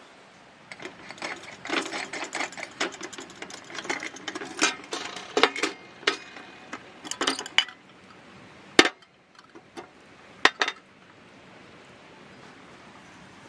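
A small metal lamp being handled apart: its glass chimney and metal burner parts clinking and rattling against each other and the metal table top for several seconds, then two sharp single clicks a second and a half apart.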